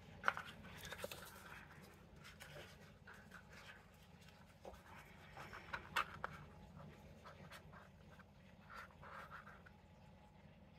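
Faint scraping of a plastic stirring stick against the inside of a paper cup as the last of the resin is scraped out, with a few light clicks and taps, the sharpest about a third of a second in and about six seconds in.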